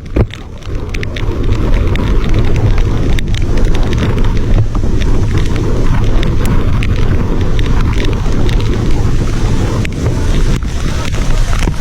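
Loud wind buffeting the microphone while cycling through a rainstorm, a dense low rumble broken by scattered sharp ticks.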